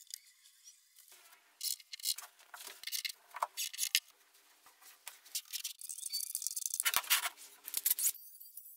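A cordless drill driving screws into pine boards in short, uneven bursts. A jigsaw starts cutting MDF near the end.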